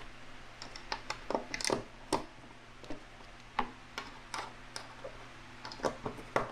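A hand screwdriver loosening the screws on a jet ski sponson makes light, irregular clicks and ticks in small bunches, a few each second.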